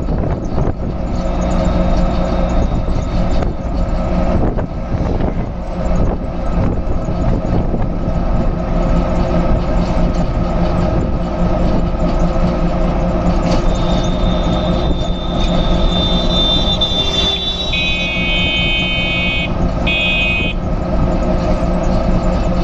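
A bus engine running with road and wind noise, heard from on board while driving. Past the middle a high thin tone comes in, then a vehicle horn sounds twice, a longer blast and a short one.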